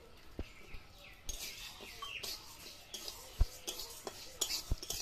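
A metal spatula scraping and stirring dry mung dal in an iron kadai as it dry-roasts, the grains rasping against the pan in repeated strokes that start about a second in. A sharp knock about three seconds in is the loudest moment.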